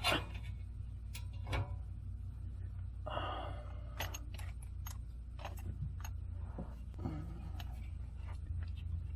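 Scattered light metallic clicks and clinks of hand tools and parts being handled, with a brief rustle about three seconds in and a quick run of clicks soon after, over a steady low hum.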